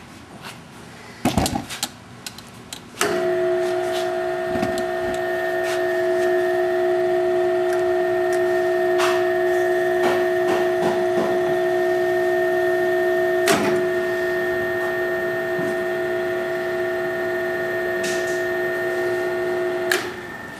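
A few knocks, then a Grizzly G0521 self-reversing drill press starts about three seconds in and runs with a steady whine, driving a three-spindle tapping head that taps three holes at once. A sharp click partway through marks the motor reversing at the set depth to back the taps out. The motor stops near the end.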